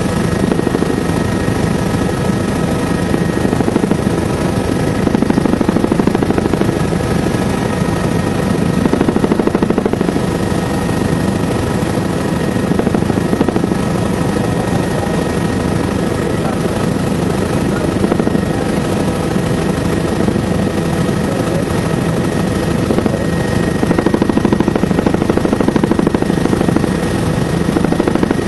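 Helicopter in flight, heard from inside the cabin: a loud, steady engine and rotor roar with a rapid blade chop and a steady high whine.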